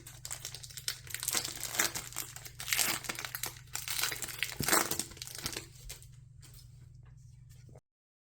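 Foil wrapper of a Pokémon TCG booster pack being torn open and crinkled: a dense crackling that stops about six seconds in, leaving only a faint hum.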